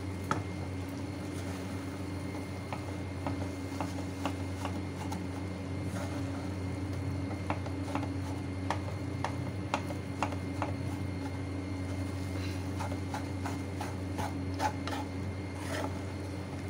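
A spatula stirring a moist desiccated-coconut and khoya mixture in a pan, with irregular soft scrapes and clicks as the spatula meets the pan, over a steady low hum.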